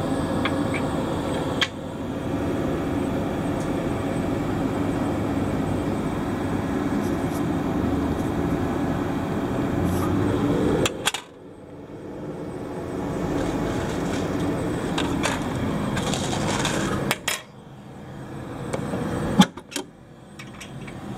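Steady rushing handling noise that cuts off suddenly about eleven seconds in and comes back more faintly, followed near the end by several sharp clicks and one loud knock.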